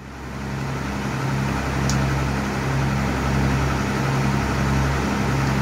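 Trawler's diesel engine running steadily under way: a low drone with a slow regular pulse, over a hiss of wind and water.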